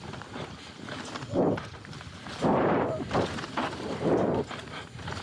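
Mountain bike tyres rolling over a dirt trail strewn with dry leaves, crunching and rattling in irregular bursts as the bike goes over bumps; the loudest stretch is a little past halfway.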